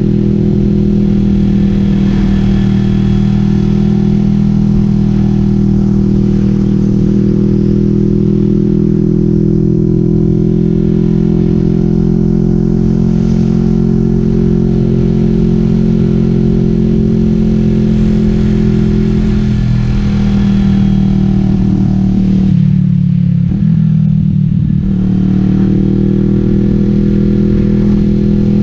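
Kawasaki Vulcan S 650's parallel-twin engine through a Delkevic 550mm slash full exhaust, heard from the rider's seat while riding. The exhaust note holds steady, then dips briefly near the end before picking back up.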